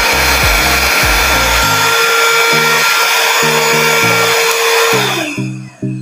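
Cordless handheld vacuum cleaner running: a steady fan whoosh with a motor whine, switched off about five seconds in and winding down with a falling whine.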